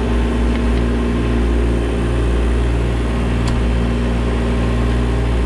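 Kubota mini excavator's diesel engine running steadily while the boom and bucket are worked. There is one light tick about three and a half seconds in.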